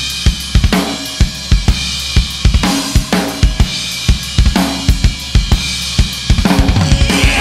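Heavy post-metal band recording with the drum kit driving it: regular kick and snare hits with crashing cymbals, about three a second, over held low notes. Near the end the drums break into a fast run of hits.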